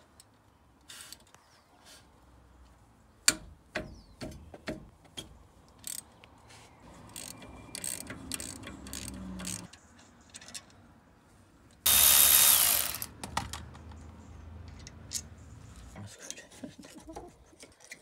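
Socket ratchet clicking and metal tools clinking while the bolts of a front brake caliper are undone. About twelve seconds in, a loud hiss lasts about a second.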